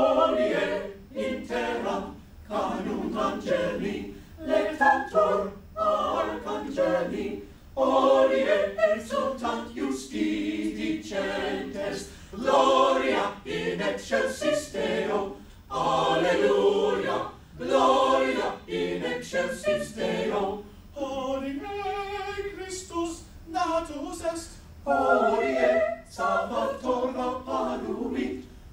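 Small mixed-voice chamber choir singing a cappella, in phrases separated by short breaks.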